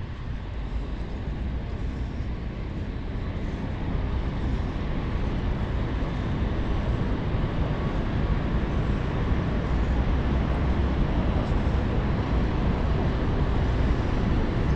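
Steady low rumble of wind buffeting the microphone and city street traffic during a bicycle ride, growing louder over the first few seconds and then holding.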